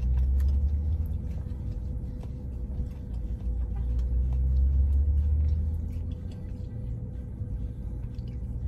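Low rumble of a car idling, heard inside the cabin, swelling near the start and again about halfway through, over a faint steady hum. Faint chewing clicks.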